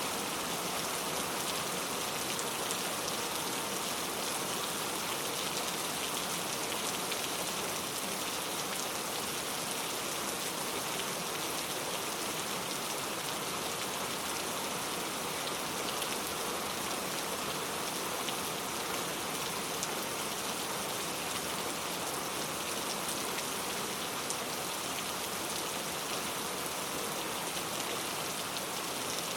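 Heavy rain falling steadily and tapping on a leaf-covered road, a dense, even patter with faint scattered drop ticks.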